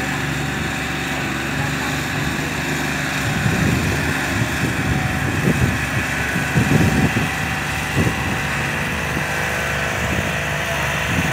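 Diesel engines of a Ford 3610 and a Fiat 640 tractor running together under heavy load as they haul an overloaded sugarcane trolley, a steady engine drone. Uneven louder low rumbles come midway through.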